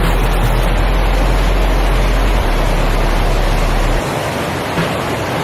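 Waterfall's steady rush of falling water. A deep low rumble underneath stops abruptly about four seconds in.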